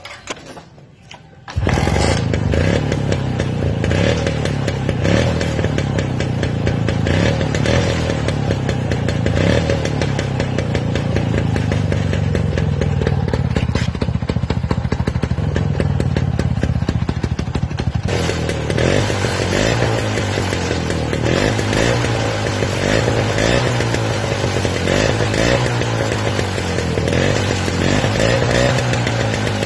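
Lambretta scooter's two-stroke single-cylinder engine running through a modified silencer, starting suddenly about a second and a half in, with the revs rising and falling. About eighteen seconds in its exhaust note turns harsher.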